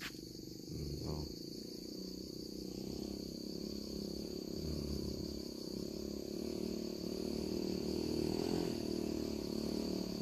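A steady, high-pitched insect chorus of crickets or cicadas buzzing without a break, over a low, uneven rumble.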